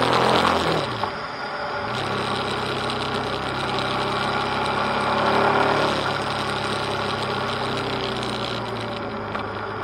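Motorcycle engine running while riding. The revs drop sharply about a second in, climb again, and then hold fairly steady.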